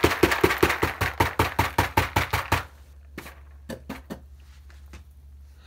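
Rapid hard knocking, about seven taps a second for nearly three seconds, then a few scattered clicks: a stick vacuum's filter being tapped against a hard surface to shake out trapped carpet powder.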